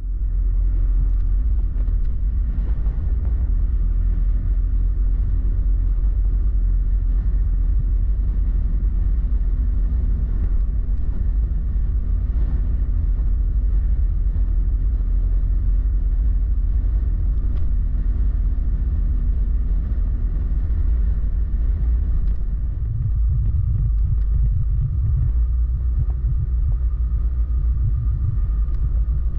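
Motorcycle ride recorded on board: steady engine rumble mixed with wind rush. The engine note changes about three-quarters of the way through.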